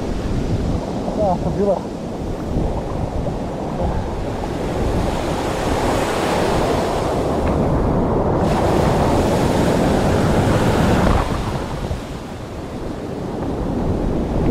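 Surf washing in the shallows, heard right at the waterline: foamy whitewash rushing and churning, with wind rumble on the microphone. The rush builds and grows hissier in the middle, then falls away sharply about eleven seconds in.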